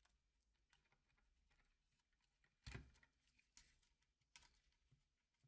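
Near silence, with a few faint clicks and taps from a light meter's circuit board and flex cable connector being handled; the clearest click comes about two and a half seconds in, two smaller ones after it.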